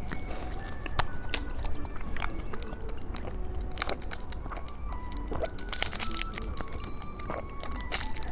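Plastic candy wrapping crinkling and clicking in short bursts as a small jelly candy is handled, over soft background music of single notes.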